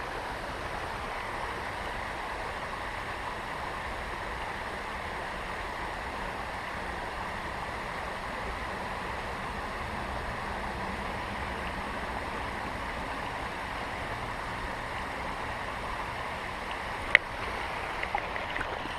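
Steady rush of creek water, with one sharp click near the end followed by a few faint clicks.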